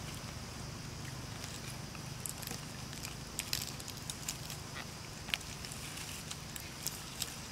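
Scattered light crackles and clicks of dry leaves and leafy stems being handled and shuffled by baby macaques, over a steady low background hum.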